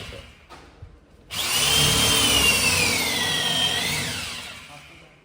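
A motor-driven whir with a high whine that wavers in pitch: it starts suddenly about a second in and fades out gradually near the end.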